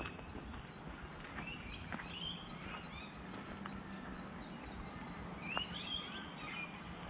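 Wild birds calling in bushland: quick chirps and short trills throughout, over a thin high steady whistle held for about six seconds. Footsteps crunch now and then on a gravel fire trail.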